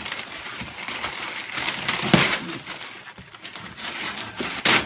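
Rustling and crinkling handling noise, with a louder crunch about two seconds in and another near the end.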